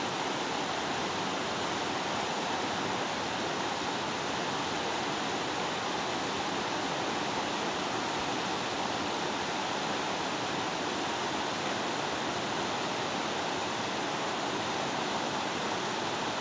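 Fast river rapids rushing in a steady, unbroken roar of water.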